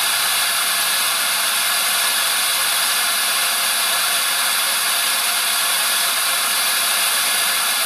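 Compressed air hissing steadily from a hose nozzle into a clear-cased air-driven rotor spinning at speed, with faint steady tones under the hiss.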